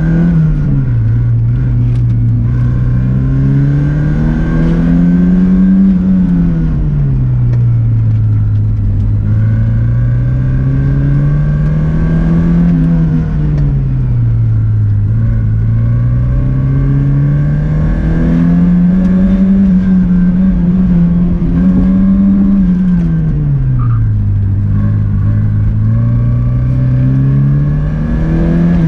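Porsche 944's inline-four engine under hard driving on an autocross course. The revs climb and drop back four times, held high for a few seconds near the middle, as the car accelerates down the straights and slows for the corners.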